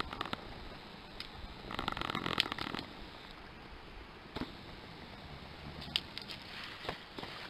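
Dry twigs and grass crunching and crackling as they are handled and piled onto a small smouldering kindling fire. There is a denser run of crackling about two seconds in and a few single sharp clicks later.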